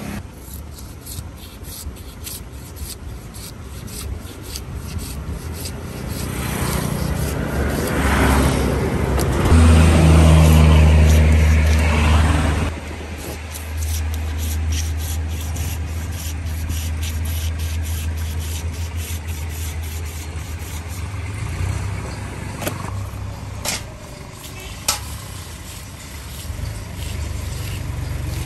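Knife scraping scales off a large fish on a wooden stump, in quick repeated scraping strokes, while a motor vehicle passes close by, loudest about ten seconds in. The level drops suddenly partway through, after which a steady low engine hum goes on under a few sharp knife knocks.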